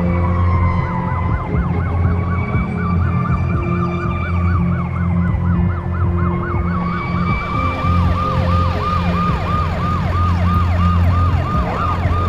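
Emergency vehicle sirens: a fast yelp sweeping up and down about four times a second, over a slower rising-and-falling wail that stops about two-thirds of the way in, with a steady low drone beneath.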